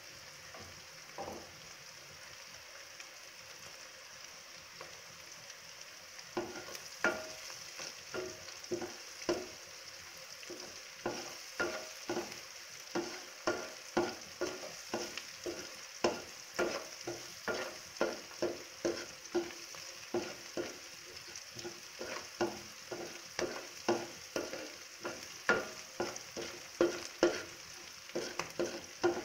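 Sliced onions and green chillies sizzling in oil in a metal pan. From about six seconds in, a wooden spatula stirs them, scraping and knocking against the pan roughly twice a second.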